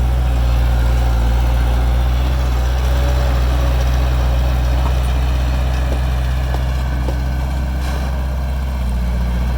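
A heavy diesel engine of construction machinery running steadily at a low, even pitch.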